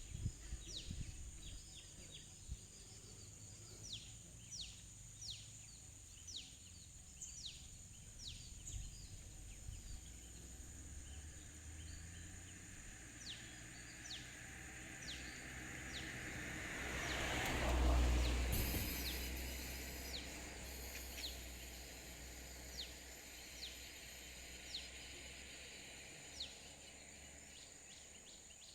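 Outdoor nature ambience: a bird repeating a short, high, downward-sweeping call about once or twice a second over a steady high insect drone. Partway through, a broad whooshing swell rises to a peak and fades away.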